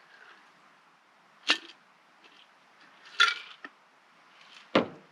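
Three sharp clinks and knocks of bar tools and glassware while a martini is mixed, about a second and a half apart. The last one is heavier, with a low thump.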